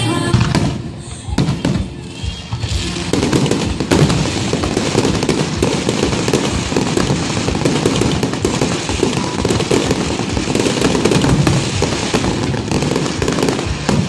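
Aerial fireworks display: a few separate bangs at first, then from about three seconds in a dense, continuous barrage of bangs and crackling.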